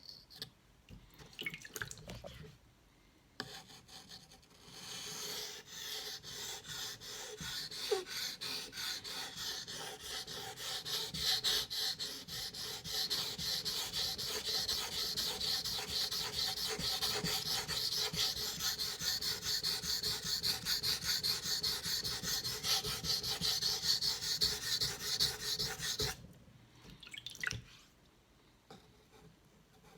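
A knife blade stroked back and forth on a wet 4,000-grit whetstone covered in slurry, a rhythmic wet scraping that starts about five seconds in and stops shortly before the end.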